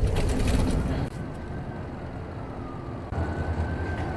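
Television drama soundtrack: a loud rush of noise for about the first second, then an emergency vehicle siren, one tone sliding slowly down in pitch, with a low rumble coming in about three seconds in.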